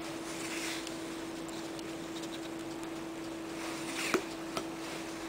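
A steady low hum over faint hiss, with one sharp click about four seconds in as a spoonful of creamy topping is set onto a mussel half-shell on a wooden board, and a softer tick shortly after.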